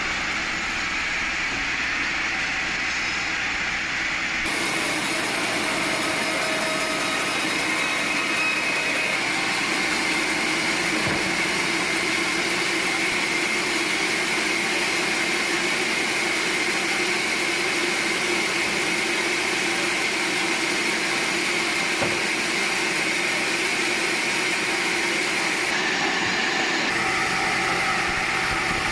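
Sawmill machinery running steadily, a constant mechanical drone with a steady high whine.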